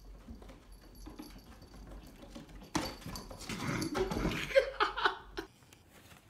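A cat leaving a wall-mounted cat-tree shelf: faint light knocks at first, then a sudden loud bump about three seconds in followed by a couple of seconds of scrabbling and clatter.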